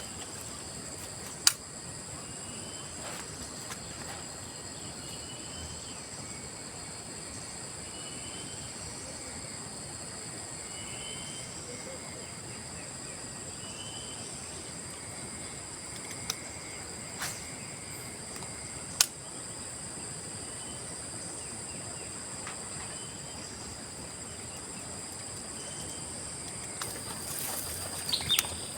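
A steady high-pitched insect chorus of crickets or cicadas, holding two even tones. Over it a short chirp repeats every couple of seconds, with a few sharp clicks.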